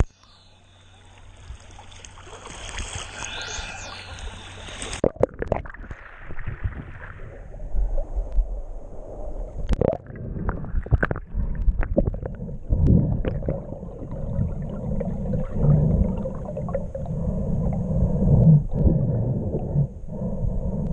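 Water noise picked up by a camera moving with a snorkeler. For the first five seconds there is a hiss that cuts off sharply. After that comes a low, muffled underwater rumble with gurgling and frequent short knocks against the camera.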